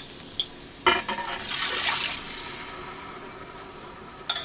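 Broth being poured into the Instant Pot's inner pot over the rice: a liquid pour starts about a second in and tapers off, framed by a few clinks of utensils against the pot.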